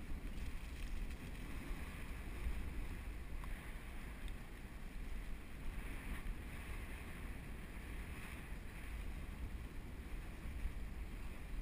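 Wind buffeting an action camera's microphone while moving quickly over grass: a steady low rumble with a faint hiss above it.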